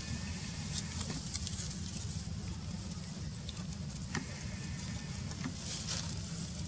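Dry leaves and twigs crackling now and then as the monkeys move on them, over a steady low rumble.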